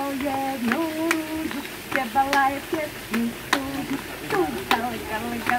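A girl and a woman chanting a sung clapping-game rhyme in step-wise held notes, with sharp hand claps on the beat roughly every half second.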